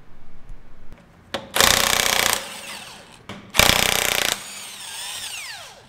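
Impact wrench hammering in two short bursts, as when lug nuts are spun off to pull a wheel. After the second burst its motor winds down with a falling whine.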